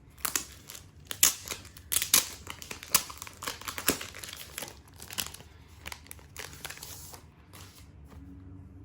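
Crinkly packaging of a set of light stick deco stickers being handled and opened: irregular crinkling and rustling that dies down near the end.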